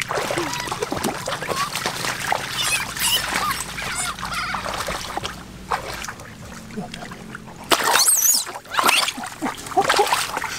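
Water splashing and trickling, with high chirping animal calls over it.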